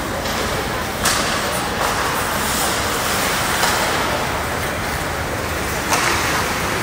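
Ice hockey game ambience in a rink: a steady wash of noise from skates on the ice and the surrounding hall, with two louder sudden scrapes, one about a second in and one near the end.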